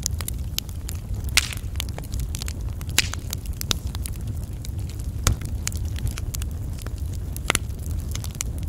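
Burning wood fire crackling: frequent sharp pops and snaps, a few of them louder, over a steady low rumble.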